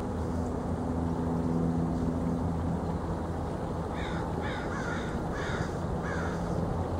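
A crow cawing, about five short, quick, falling caws starting about four seconds in, over a steady low hum.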